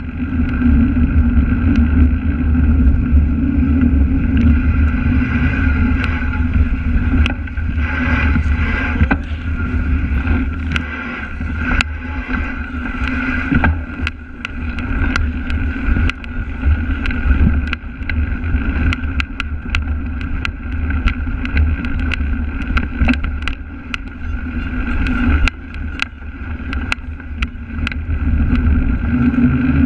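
Wind rumbling on a cyclist's action camera while riding a cyclocross bike, with the bike rattling and clicking over bumpy grass and path.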